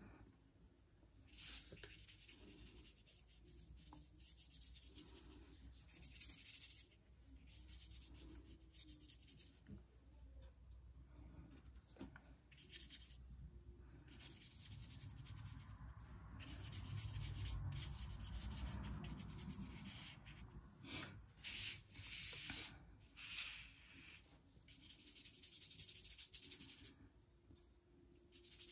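Faint paintbrush strokes brushing and scratching across a sheet of paper in short repeated bursts. At one point the sheet is slid and turned on the table.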